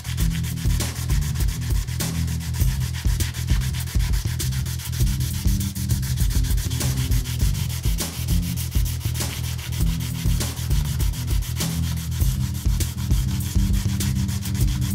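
Hand sanding with marine-grade sandpaper on a wooden Pearl bass drum shell, stripping off the last of its red paint: continuous quick back-and-forth rubbing strokes, with the hollow shell resonating low beneath them.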